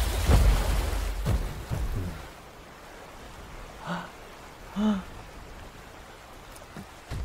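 Heavy footsteps of a giant robot: sharp thuds over a low rumble that fade out over the first two seconds. About four seconds in, a boy makes two short vocal sounds about a second apart.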